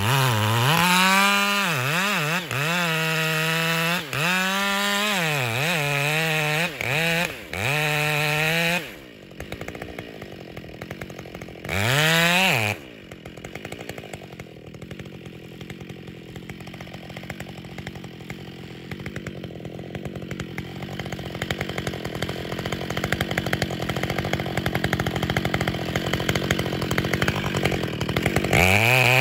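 Two-stroke chainsaw cutting into the base of a standing tree, its engine speed swinging up and down repeatedly for about the first nine seconds. It gives one short rev, runs lower and steadier for a long stretch, then comes back up to full revs near the end.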